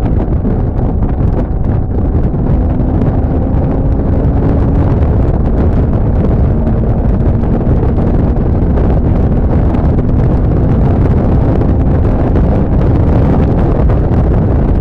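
Heavy wind buffeting the microphone, a steady low rumble, with a faint steady hum that comes and goes underneath.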